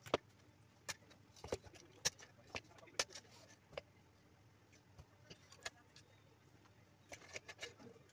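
Sharp plastic clicks and light knocks as PC case fans' plastic frames and their cable connectors are handled, irregular and spaced out, with a quicker run of clicks near the end.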